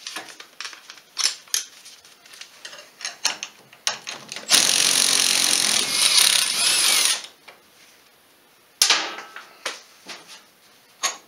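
Clinks of metal tools and sockets, then a cordless power tool spinning a socket on a bolt of an ATV's rear hub knuckle for about two and a half seconds, loosening it for hub bearing removal. A second short burst of the tool comes near the end.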